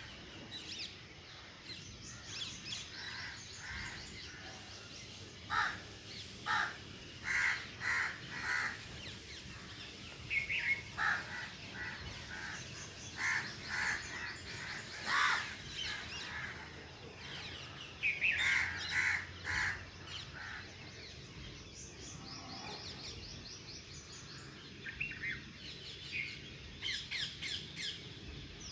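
Several birds calling at sunrise over a faint steady outdoor hum. Runs of louder, lower calls come in clusters through the middle, set among quicker high-pitched chirps.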